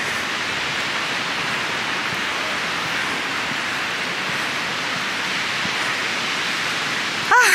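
A steady, even rushing noise, with a brief cry from a person's voice near the end.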